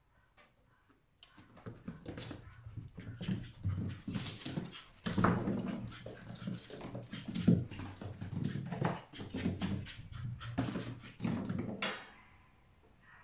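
Chihuahua puppy vocalising in a rapid run of short bursts, starting about a second in and breaking off sharply near the end.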